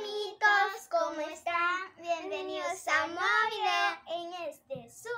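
Young girls singing, their voices holding long, drawn-out notes with short breaks between phrases.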